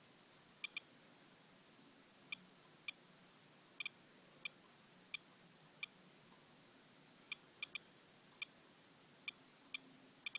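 Handheld radiation detector beeping once for each detected count, short high beeps at irregular, random intervals, about sixteen of them, sometimes two in quick succession. It is measuring a paper towel used to wipe rainwater off a car, which reads well above normal background.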